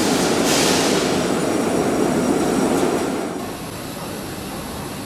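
A 600 W YAG CNC laser cutting machine at work, cutting 1 mm aluminium-plastic composite plate: a steady, loud rushing noise with a brief hiss about half a second in. It becomes clearly quieter about three and a half seconds in.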